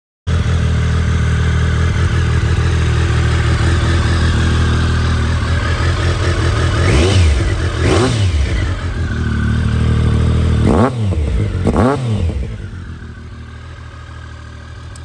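2004 Triumph Daytona 955i's fuel-injected inline three-cylinder engine idling through an aftermarket exhaust, blipped four times: two quick revs about a second apart in the middle, then two more a few seconds later, each rising and falling in pitch.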